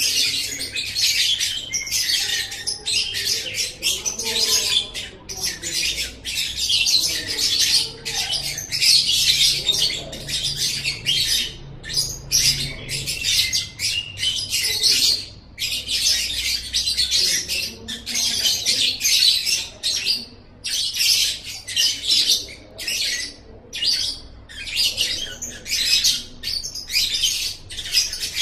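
Lovebird singing 'ngekek': long runs of rapid, shrill chattering, each lasting one to three seconds, broken by short pauses and starting again over and over.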